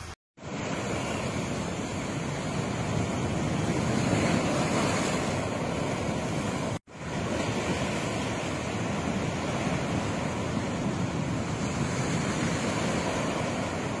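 Rough, storm-driven sea surf breaking and washing over shoreline rocks in a steady roar, with wind gusting on the microphone. The sound cuts out briefly twice, just after the start and about halfway, where shots are joined.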